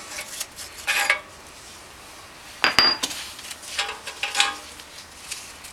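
Metal-on-metal clinks and knocks of a wrench being worked on a 30 mm (1-1/8") bolt used as a makeshift puller for the lower steering stem bearing holder. They come in three short clusters, about one second in, about three seconds in with a brief ringing clink, and around four seconds in.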